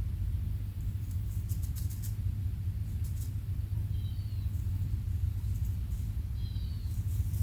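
Steady low rumble, with a few faint clicks and short, high quail chirps, once about four seconds in and again near the end.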